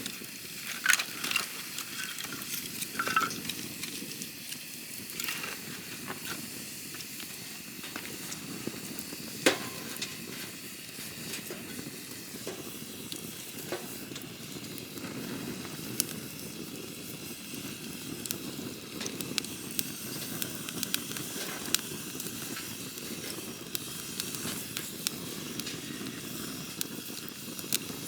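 Wood campfire burning with a steady hiss and low rumble of flame, dotted with irregular sharp crackles and pops, a few of them louder.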